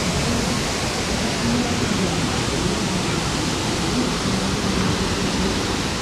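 Steady rush of falling and flowing water from a waterfall and river, an even roar with no break.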